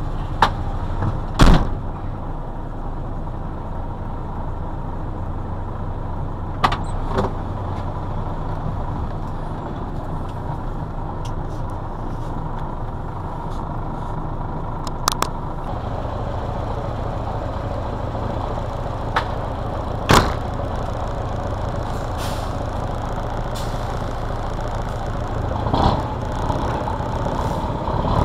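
Scania 142M's V8 diesel engine idling steadily, heard from inside the cab, with a few sharp knocks and clicks close by.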